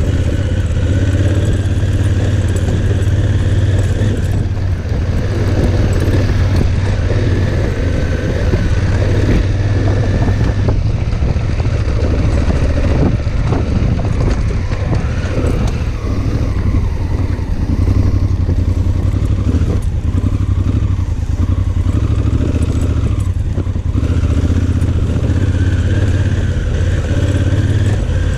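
Honda Africa Twin's parallel-twin engine running at a low, steady pace while riding a loose gravel track, with stones clattering under the tyres and against the bike.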